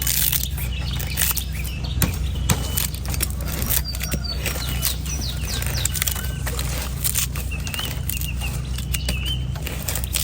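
A knife chopping a coconut in a few sharp, separate strikes, over a steady low hum. From about four seconds in, birds chirp several times with short, quick whistles.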